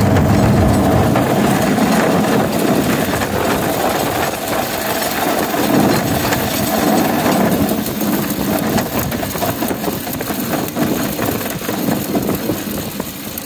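Small-engine motorized railcart rolling along the rails, engine and wheel noise running steadily. About halfway through the sound eases off and grows quieter and more clicky as the hand brake is held and the cart slows.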